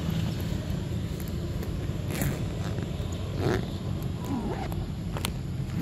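Long-tailed macaque giving a few short squeaks around the middle, over a steady low rumble with scattered sharp clicks.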